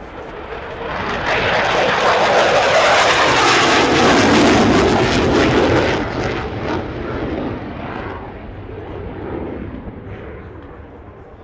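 Jet aircraft flying past low: a rushing engine noise swells over about a second, is loudest for a few seconds while its pitch drops as it passes, then fades away.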